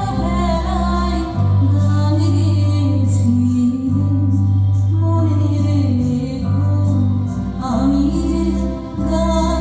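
Slow background music with long held low notes under a gliding melody.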